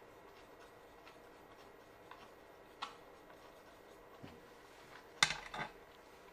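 Sharp clicks of small hard objects over faint room tone: a single click about three seconds in and a quick clatter of several clicks about five seconds in.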